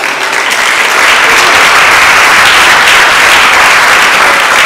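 Audience applauding in a theatre: a dense clapping that swells about a second in and then holds steady.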